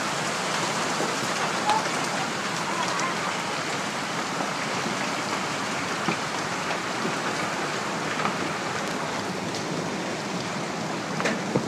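Heavy storm rain pouring down, a steady dense hiss with a few faint scattered taps.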